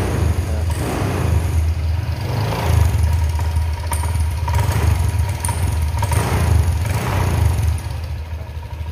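Honda Vario 150 scooter engine revved to higher RPM, swelling and easing several times and falling back somewhat near the end. At these higher revs it runs without the low-RPM misfire (brebet) that makes it unable to idle and stall on sudden throttle.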